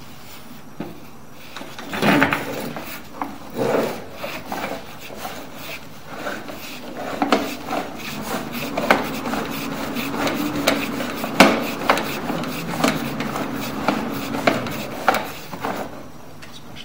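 Sewer inspection camera's push cable being fed by hand into a drain line: irregular rubbing and scraping with frequent sharp knocks, over a faint steady hum in the middle.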